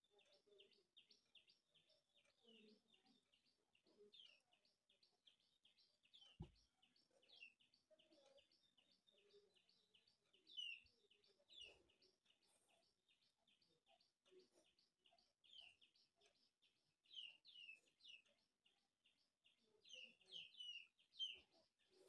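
Faint bird chirping: a rapid, even series of short high chirps, about three or four a second, that keeps on throughout.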